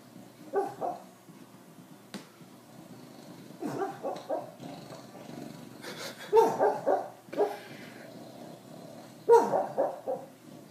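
A sleeping dog giving short, muffled woofs and yips in its sleep, as if barking in a dream. They come in four clusters a few seconds apart, the loudest about two-thirds of the way through and near the end.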